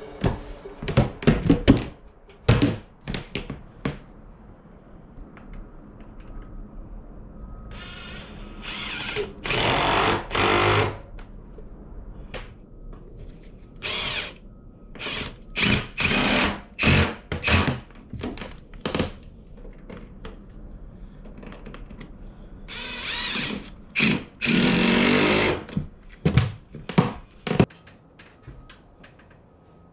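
Cordless drill running in a string of short bursts, mostly about a second each, with one longer run of two to three seconds about three-quarters of the way through. Sharp wooden knocks and clatter come between the bursts.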